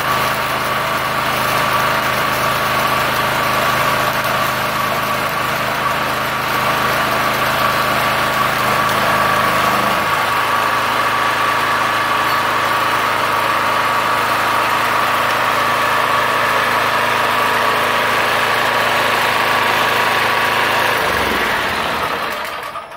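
Portable MultiPro petrol generator running steadily while it powers an inverter arc welder. About ten seconds in, its low engine note changes. Near the end the engine slows and stops.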